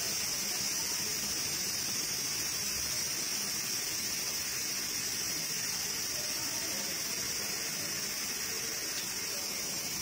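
Steady hiss of water running from a PVC rainwater downpipe into a filter pit, unchanging throughout.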